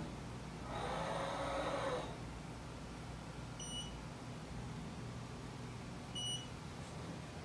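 Mitutoyo Bright 916 coordinate measuring machine driving its axes: a whirring drive noise for about a second, then two short high beeps a few seconds apart as the Renishaw TP2 touch-trigger probe touches the reference sphere and registers each hit, over a steady low hum.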